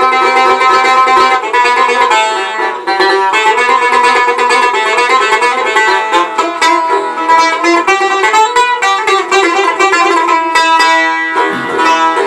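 Tar, a long-necked lute with a double-bowled, skin-topped body, played solo in a quick instrumental passage of many rapidly plucked notes.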